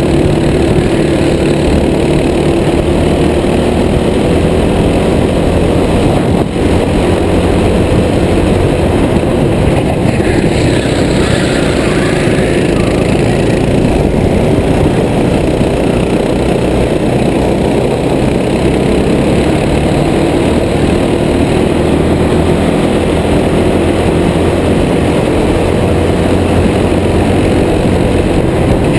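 Racing go-kart engine running hard at race pace, its pitch rising and falling as the driver accelerates and lifts through the corners, heard through a helmet-mounted camera.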